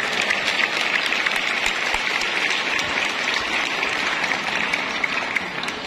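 A large crowd of students applauding at the close of a speech: many hands clapping in a dense, steady clatter that eases slightly near the end.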